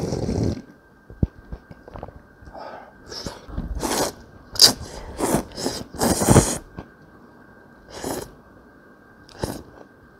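A person sipping noodle-soup broth straight from the bowl, then slurping noodles in a series of short, sharp sucks, with quiet chewing between.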